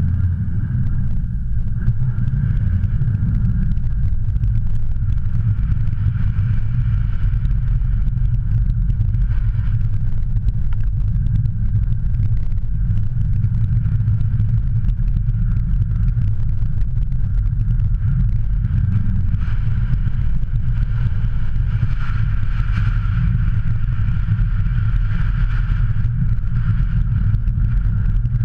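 Peugeot 308 1.6 HDi four-cylinder diesel car driving on packed snow, heard from a camera on its bonnet: a steady, loud low rumble of wind, tyres and engine, with a higher steady hum that grows stronger past the middle.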